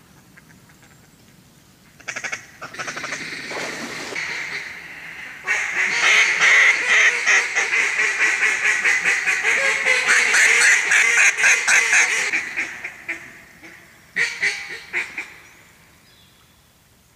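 Mallard duck calls blown hard: a fast run of quacks and chatter that starts about two seconds in, grows loudest through the middle, tails off, and returns in a short burst near the end.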